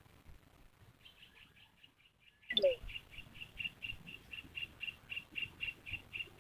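A small bird calling a rapid run of high, evenly spaced chirps, about four a second, with a brief louder call sweeping down in pitch about two and a half seconds in.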